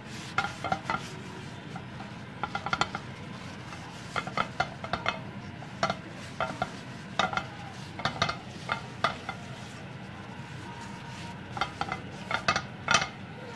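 Paper towel wiping the inside of a Cerafit ceramic nonstick frying pan clean of food residue. The rubbing makes short squeaks and scrapes in irregular clusters, with a steady low hum underneath.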